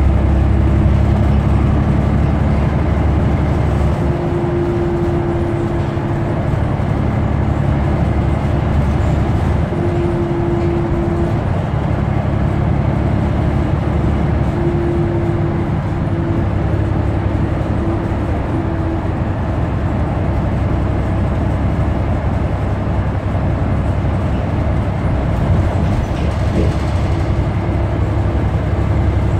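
New Flyer XD40 Xcelsior diesel city bus running, a steady low drone. A humming tone stands out from it briefly four times in the first twenty seconds.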